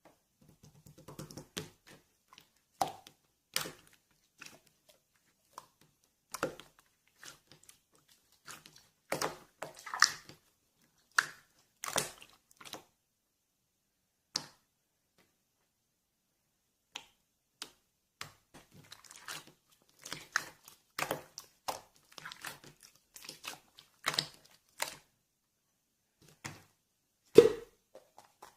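Irregular small handling noises: scattered taps, clicks and crinkling, with short silences between them and one louder knock near the end.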